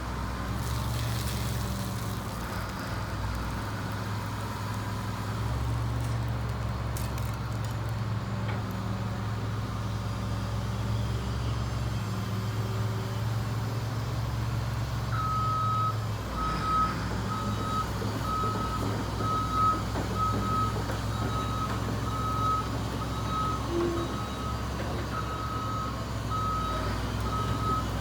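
Cat 325CL excavator's Cat 3126 diesel engine running steadily. About halfway through, the machine's warning alarm starts beeping, roughly once a second.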